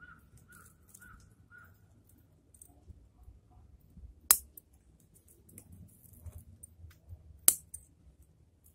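Two sharp snips of bonsai scissors, about three seconds apart, with faint small clicks of handling in between.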